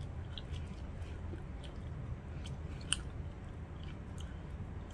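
Close-up chewing and biting of roasted chicken and potato: wet mouth sounds with scattered sharp clicks, one louder about three seconds in, over a steady low hum.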